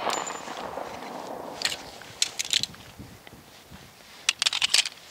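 The echo of a .45 ACP pistol shot dies away at the start, followed by three small clusters of sharp clicks and rattles, the loudest near the end, from the 1911 pistol being handled.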